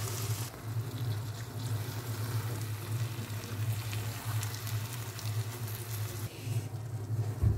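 Fried baby prawns being stirred into hot masala in a kadhai, sizzling in the oil, with faint scrapes of the stirring spoon. A steady low hum sits underneath.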